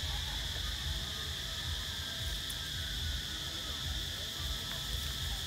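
Insects droning steadily on one high pitch, with a low rumble underneath.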